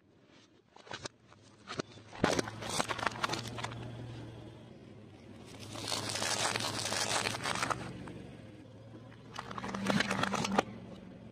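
A car tyre rolling over packaged jellies and candy tubes, crushing them: crackling, crunching and popping of plastic wrappers and squished candy in three bursts, about two seconds in, around six seconds in and around ten seconds in, over a low steady hum.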